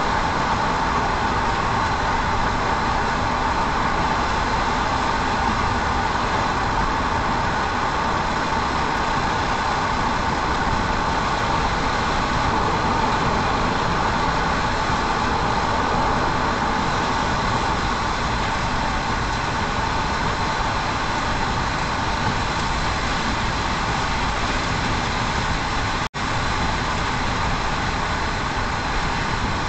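Steady road noise of a car driving, heard inside the cabin: engine and tyres on wet pavement. The sound cuts out for an instant near the end.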